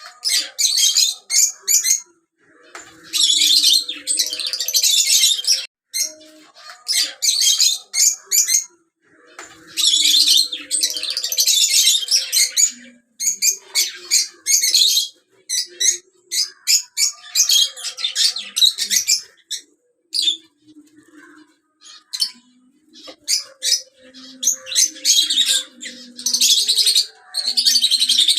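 Pet African lovebirds chattering in repeated bouts of shrill, rapid chirps and squawks, each bout a second or a few long, with short pauses between.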